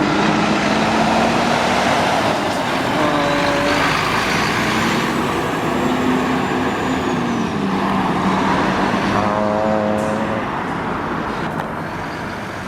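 Big truck's engine running as it pulls out, its low note wavering up and down, under a loud steady rush of wind on the microphone.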